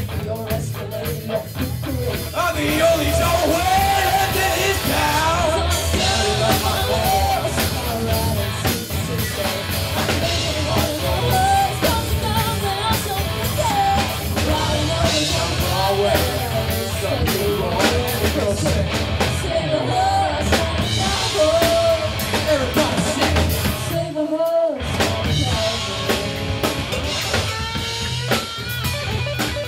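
Live rock band playing: a female lead vocal sung over electric guitars and a drum kit. The band stops dead for a moment near the end, then comes back in.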